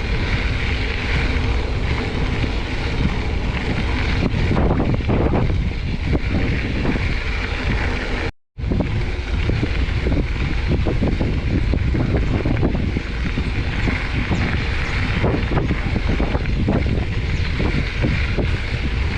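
Mountain bike riding a dirt trail: steady wind noise on the action-camera microphone over the rumble of knobby tyres on the ground, with scattered rattles and knocks from the bike. The sound cuts out completely for a moment about eight seconds in.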